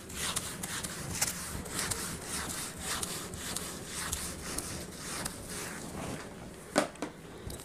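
Hand-writing strokes: a steady run of short, scratchy rubbing strokes across a writing surface, with a sharp tap about seven seconds in.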